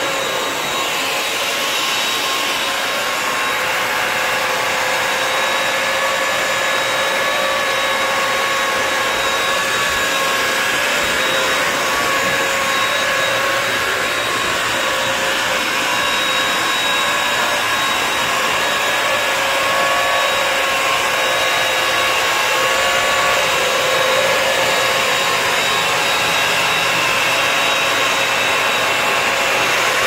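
BISSELL CrossWave wet-dry vacuum running steadily as it vacuums and washes a tile floor: a continuous motor hum with a high, steady whine.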